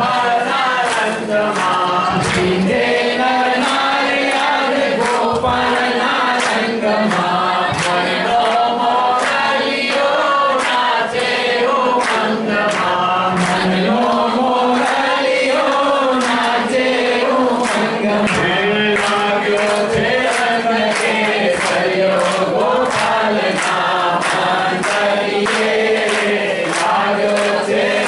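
A congregation singing a Hindu devotional bhajan together, with steady hand-clapping in time.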